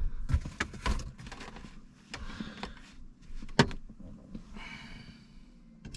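Scattered clicks and knocks of car interior parts being handled, with one sharper knock about three and a half seconds in and a short rustle near the end.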